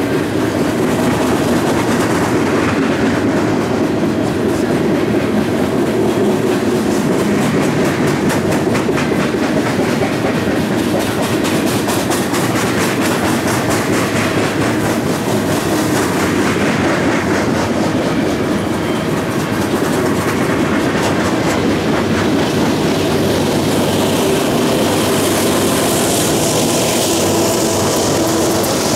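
Freight train of coal hopper cars rolling past close by: steady rumble of wheels and cars with a continuous clickety-clack over the rail joints. Near the end the sound grows brighter as Union Pacific diesel locomotives come alongside.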